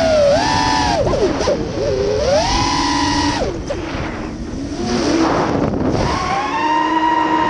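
The brushless motors and propellers of a Storm SRD 180 racing quadcopter, heard from its onboard camera: a whine that swoops up and down as the throttle changes and settles to a steady high note near the end, over a rush of air noise.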